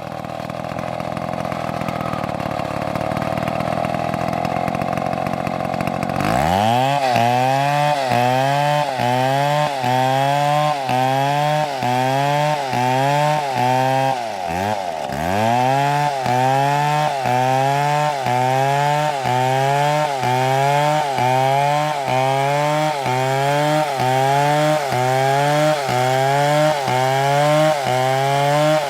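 Two-stroke chainsaw running at high revs, then cutting through a dead palm trunk. From about six seconds in, its engine note dips and recovers in a steady rhythm about once a second as the chain bites under load, with one deeper dip midway.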